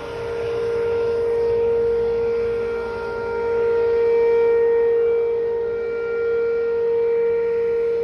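Outdoor tornado warning siren sounding a steady single-pitch tone during a drill test, swelling and fading in loudness about every three seconds.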